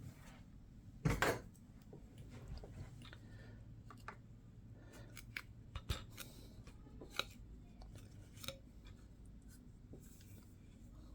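Plastic parts of a scale Airbus A380 model being handled and fitted together: scattered light clicks and taps, with one louder knock about a second in.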